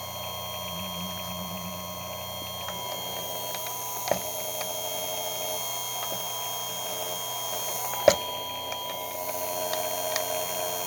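Chicago Electric electric chainsaw sharpener's grinder motor running with a steady whine, with two sharp clicks about four seconds apart.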